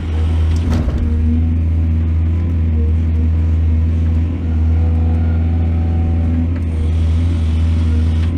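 Excavator's diesel engine running steadily with a deep low hum, and a short knock about a second in.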